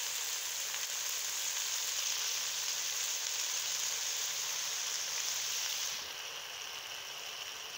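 Okra, onions and tomatoes sizzling steadily in hot ghee in a pot, frying. The sizzle eases a little about six seconds in.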